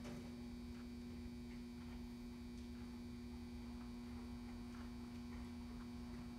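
Steady low electrical hum with a rumble underneath, and a few faint, irregular ticks.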